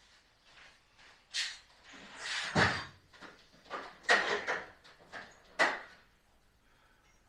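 Irregular metal knocks and clatters from tools being handled around the seized shock absorber bolt, about six in all, the loudest about two and a half and four seconds in, then quiet.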